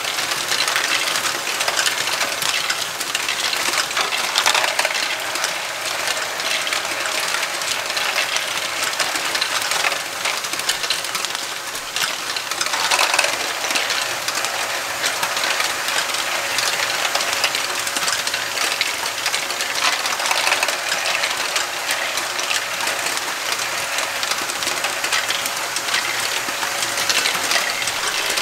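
Lego Great Ball Contraption modules running: many small plastic Lego balls clattering and rattling through plastic lifters, tracks and paddle wheels, with the Lego motors and gearing running under it in a steady whine.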